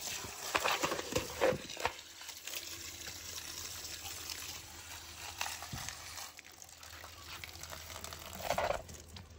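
Steady stream of water running from a pipe and splashing onto a mass of black soldier fly larvae in a plastic mesh colander as they are rinsed, with a few short, louder splashes in the first couple of seconds and another near the end.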